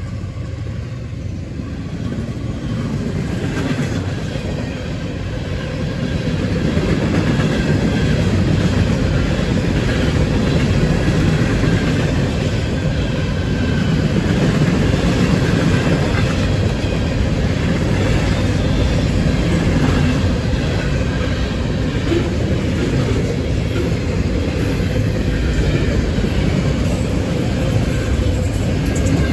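Florida East Coast Railway freight train rolling past, a steady rumble of wheels on rail and rattling cars that grows louder a few seconds in and then holds.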